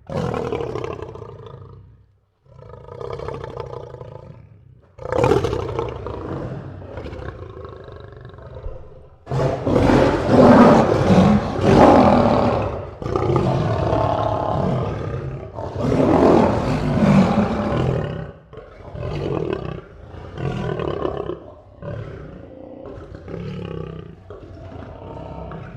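A lion roaring in a bout of about a dozen calls, the loudest and longest in the middle, then shorter, quieter calls near the end.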